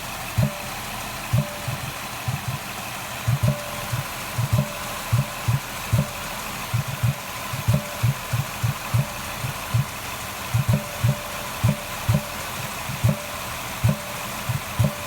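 Ford Escape engine idling with low thumps coming from the air intake, about two a second at uneven spacing, over the steady engine hum.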